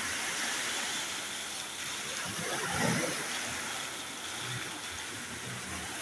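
Small sea waves washing in and draining back over a pebble beach, with a steady fizzing wash of water through the stones and one wave swelling about halfway through.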